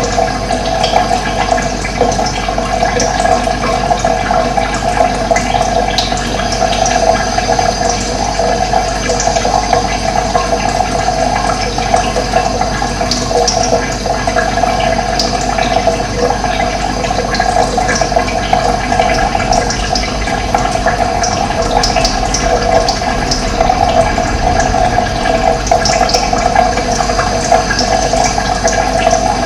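Steady rush of running water, with birds chirping in short high notes throughout.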